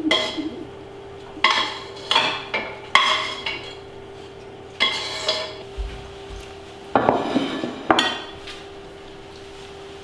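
A metal utensil scraping and clinking against a metal pan as it is emptied into a ceramic bowl, about five ringing strikes over the first five seconds, then a louder clatter around seven seconds in. A steady low hum runs underneath.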